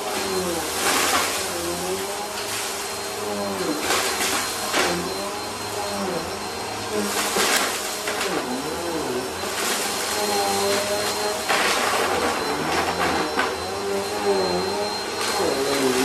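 A Bissell upright vacuum cleaner runs steadily over a rug, sucking up crunched food crumbs. Its motor pitch dips and recovers again and again, with short bursts of crackling and rattling as the debris is picked up.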